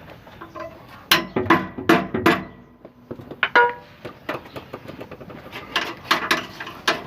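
A mallet striking a torch-heated, rust-seized exhaust bolt: about nine sharp metallic blows in three quick groups, some with a short ring, to break the rust's hold on the bolt.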